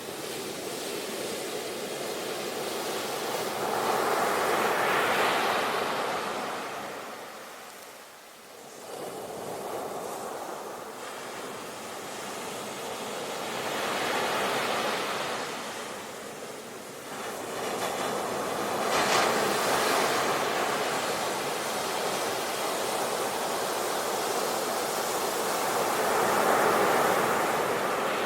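Sea waves breaking and washing on the shore: a steady rushing surf that swells and recedes, with about four waves cresting over the stretch and a brief lull between them.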